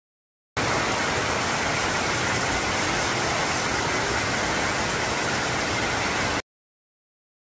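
Waimea Falls pouring into its plunge pool: a steady, even rush of falling water. It cuts in abruptly about half a second in and cuts off abruptly near the end.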